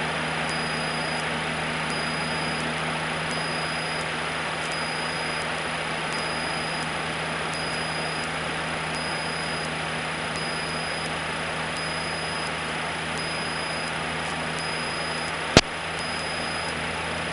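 Cessna 152's four-cylinder Lycoming engine and propeller running steadily at cruise, heard as an even drone inside the cabin, with a faint electrical whine. A single sharp click comes near the end.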